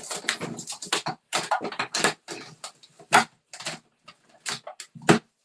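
A quick run of clicks, taps and rustles from craft supplies being handled, among them a clear plastic photopolymer stamp case. Two louder knocks come about three seconds and five seconds in.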